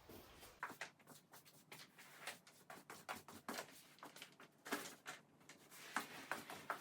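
Faint, irregular clicks and light knocks, a few each second.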